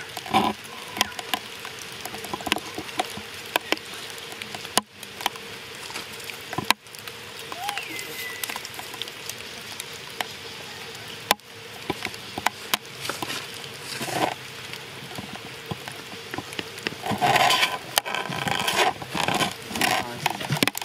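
Outdoor ambience of irregular crackling clicks and rustles over a faint steady hum, with a couple of short chirps and a brief pitched call near the end.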